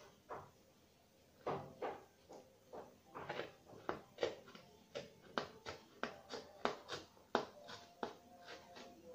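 A small hand blade cutting into the cardboard body of a tissue-paper piñata in short, repeated scraping strokes, starting about a second and a half in and going at roughly two strokes a second.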